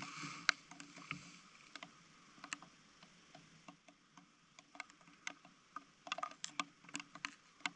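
Scattered light clicks and small scrapes of a fouled two-stroke dirt bike spark plug being cleaned by hand with moss and stones, coming thicker in the last couple of seconds.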